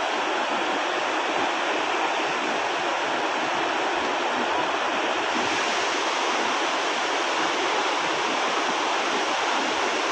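River water pouring over a concrete weir and churning at its foot: a steady, even rush of falling water.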